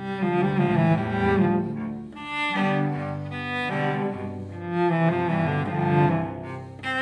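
Three cellos bowing a minuet together in three parts: the lowest cello plays the bass line, the middle cello an inner line and the top cello the melody. Loudness dips briefly between phrases about two seconds in and again near the end.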